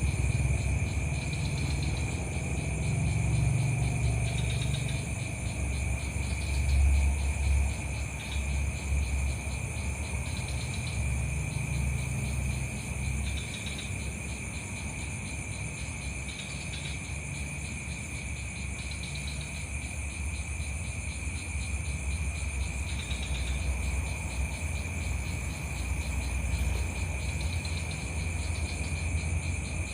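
Steady insect chorus, a constant shrill trilling in several high tones, with faint short chirps breaking in every few seconds. Underneath runs a low rumble that swells and fades, loudest about seven seconds in.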